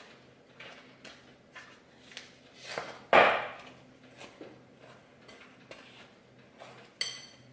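Wooden spoon stirring and scraping a stiff cookie mixture of flour, sugar and melted butter around a glass mixing bowl, a stroke every half second to a second. One loud knock of the spoon against the bowl about three seconds in, and a short ringing clink near the end.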